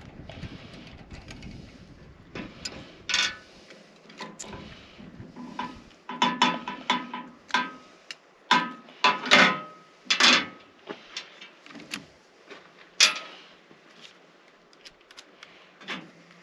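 Metal parts of a Wi-Fi mast mount bracket clinking and clanking as they are handled and taken apart, in irregular knocks, some with a short metallic ring, coming thicker after the first few seconds.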